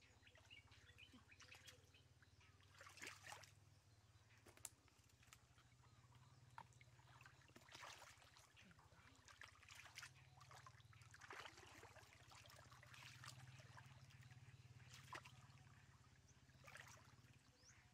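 Faint, scattered splashing and sloshing of hands groping through shallow muddy water, a few soft splashes every few seconds, over a steady low hum.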